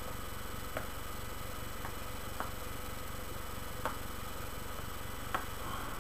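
Steady electrical hiss and hum of a low-quality webcam microphone, with a few faint short clicks scattered about a second apart.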